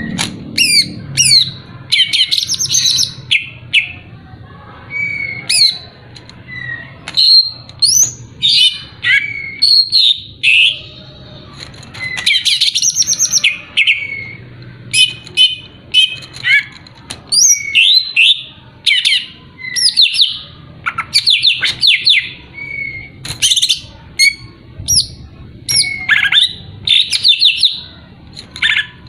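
Green leafbird (cucak ijo) singing loudly in short, varied bursts: clear whistled notes mixed with fast chattering trills and sharp squeaky sweeps, with brief pauses between phrases.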